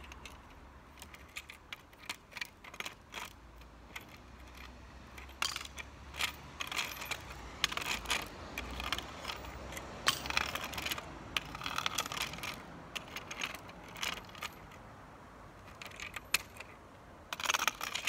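Irregular clicks, taps and scrapes of a long-handled metal grabber tool working along the top of a stone wall, with small metallic clinks of coins being picked up, busiest in the middle and with a louder cluster near the end.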